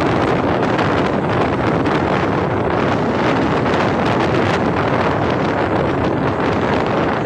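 Steady loud rush of wind buffeting the microphone of a phone held out of the door of an Indian express passenger train running at speed, with the train's running noise on the track mixed in.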